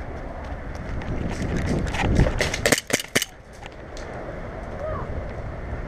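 Airsoft gunfire: a quick run of about five sharp snaps around the middle, with a few fainter ones just before, over steady wind noise on the microphone.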